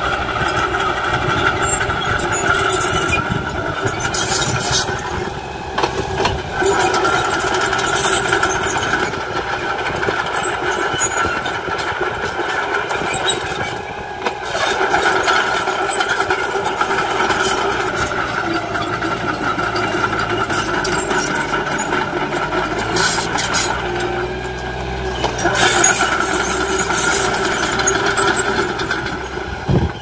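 Small crawler bulldozer's diesel engine running steadily under load as it pushes soil with its blade, growing noisier for a second or two now and then.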